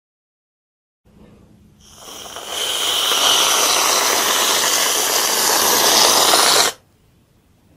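Aerosol can of whipped cream spraying. The hiss starts faintly about a second in, swells to a loud, steady hiss, then cuts off abruptly near the end.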